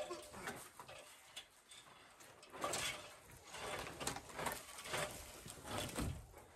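A handful of short, irregular knocks and scrapes from hands-on work on the wooden pallet-wall frame.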